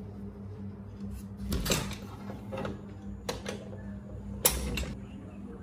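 Wooden window being unfastened and pushed open: a series of sharp clicks and knocks from its fittings and frame, the loudest a little before the end.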